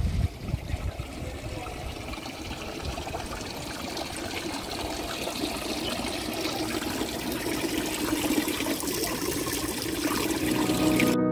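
Water trickling from the metal spouts of a stone wall fountain and splashing into its basin, a steady pouring sound that grows louder toward the end.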